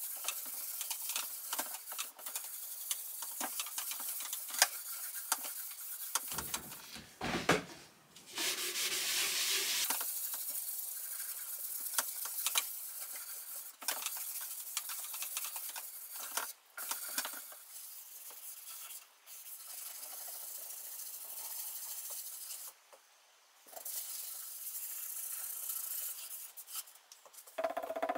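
Scotch-Brite pad rubbing over the oiled surface of a teak sideboard, wiping off excess Osmo finish: a steady scratchy hiss dotted with small clicks. A few dull knocks come about six to seven seconds in.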